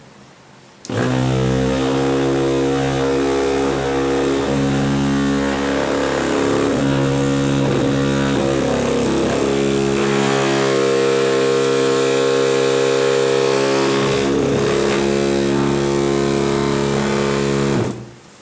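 Small DC motor of a homemade bench grinder running at a steady high speed, a constant whine. It starts abruptly about a second in and cuts off abruptly near the end, with a slight change in tone about halfway through.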